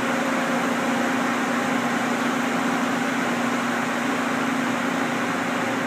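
Steady mechanical hum of a powered-up Mazak Quick Turn 20 CNC lathe standing idle, a low even tone under a whirring haze.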